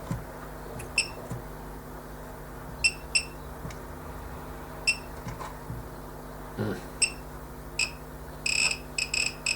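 Short, high electronic button beeps, about a dozen, scattered and irregular with a quick run near the end, as keys are pressed to set a lower voltage on a Riden digital bench power supply. A steady low electrical hum lies underneath.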